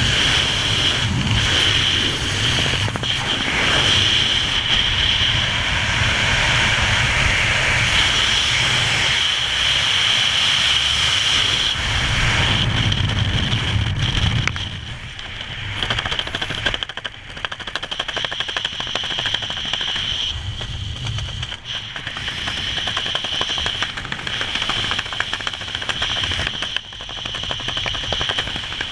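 Wind rushing and buffeting over a skydiver's camera microphone. About halfway through it drops from a heavy steady rush to a rough, rapid crackling flutter.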